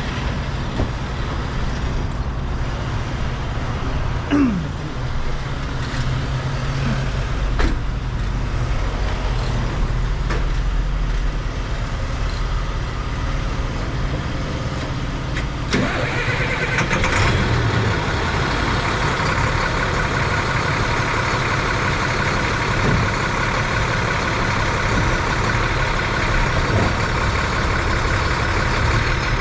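Heavy diesel vehicle engine running steadily, with a few sharp clacks. About 16 seconds in it gets louder and busier, as if working harder or revving up.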